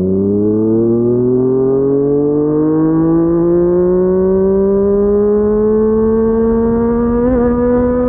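Yamaha MT-09 inline-three engine through a Yoshimura R55 slip-on exhaust, pulling hard in one gear, its note climbing slowly and steadily as the bike accelerates, with a brief waver near the end.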